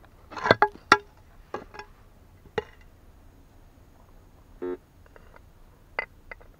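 Thin metal bangles clinking against each other and the stone as they are handled: a cluster of sharp, ringing clinks about half a second to a second in, a few more over the next two seconds, and two more near the end. A short buzzy tone about two-thirds of the way through.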